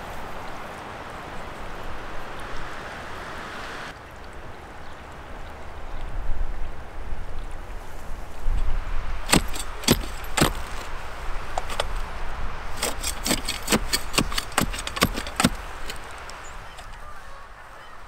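Manual clamshell post-hole digger being jabbed into tilled soil, its steel blades and handles clinking in a quick run of sharp strikes for about six seconds, starting about halfway through.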